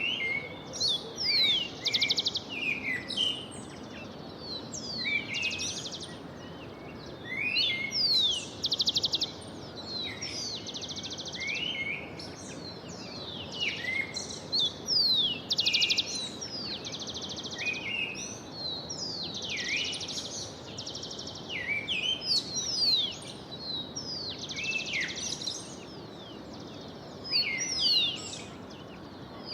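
Songbirds singing in a dawn chorus: many overlapping quick downward-sweeping chirps and fast trills, over a steady background hiss.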